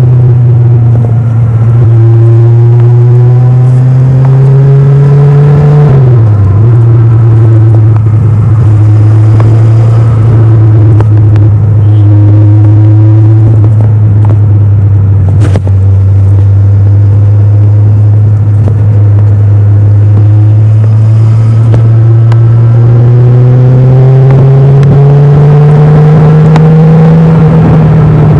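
Kawasaki Ninja 1000's inline-four engine with its stock exhaust, riding under way. The engine note climbs for the first six seconds, drops sharply as the throttle is rolled off, holds steady at a cruise for most of the stretch, then climbs again over the last few seconds; a single sharp click about halfway through.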